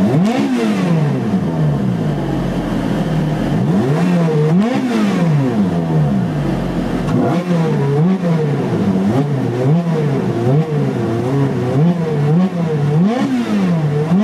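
Ferrari 430 Scuderia 16M's V8 revved in neutral at a standstill. Two longer revs, then a quick run of short throttle blips about one a second, each one rising and falling back to idle.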